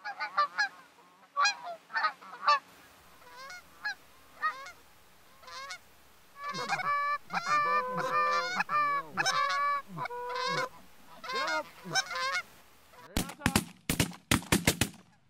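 A flock of Canada geese honking in flight, many overlapping calls. In the last two seconds comes a rapid volley of shotgun shots.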